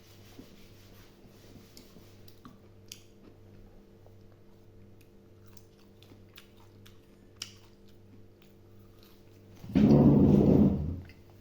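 A person chewing, with faint small clicks over a steady low hum. Near the end there is one loud, rough rush of sound lasting about a second.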